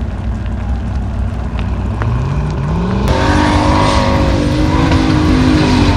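Formula Offroad buggy engine revving hard under load on a steep dirt hill climb, with the pitch rising in pulls. About three seconds in, the sound switches abruptly to a second buggy's louder, higher, wavering engine note with a hiss of spraying dirt.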